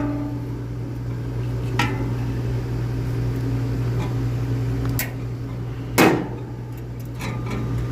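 Hand tools at work on an HVAC condenser: a few sharp clicks and metallic knocks, the loudest about six seconds in, from cutting zip ties and handling the fan assembly. A steady low hum runs underneath.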